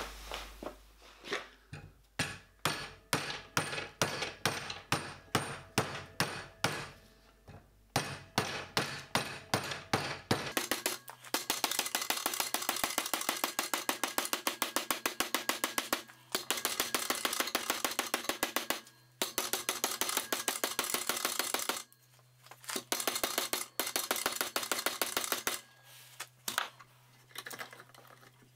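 Hammer blows on a copper firebox tube plate clamped against a wooden former in a bench vice, flanging its edge down over the former. Spaced strikes at first, then from about ten seconds in fast, steady runs of blows broken by short pauses.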